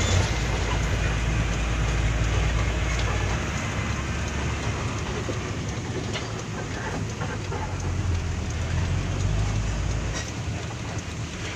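Heavy diesel dump truck heard from inside its cab while driving on a rough dirt road: a low engine drone under a steady rattle and road noise. The deepest part of the drone eases off a few seconds in and again near the end.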